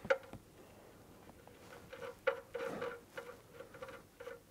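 Faint small metallic clicks and scrapes of the oil drain plug being threaded back into the engine's sump by hand, with a slightly louder scrape a little past halfway.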